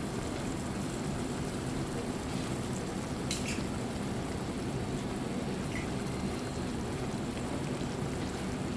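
Chicken liver adobo simmering steadily in its sauce in a pan, with one short click about three and a half seconds in.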